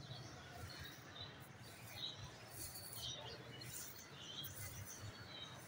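Small birds chirping now and then in short high notes, over a low steady background rumble.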